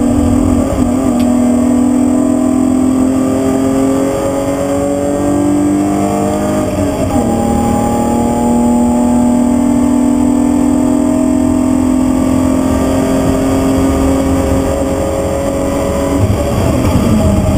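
BMW E36 323's straight-six engine heard from inside the stripped, caged cabin, running hard with its pitch climbing slowly under load. About seven seconds in the pitch drops sharply, then climbs slowly again, and it dips once more near the end, over a low rumble of road noise.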